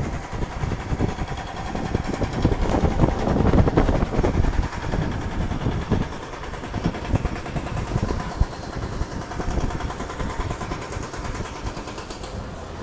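A motor engine running close by over street traffic noise, a low rumble that swells about three to four seconds in and then eases off.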